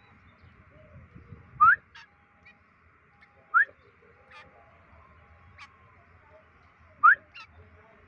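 Three short, clear rising whistles, the second about two seconds after the first and the third about three and a half seconds later, over a faint steady hiss.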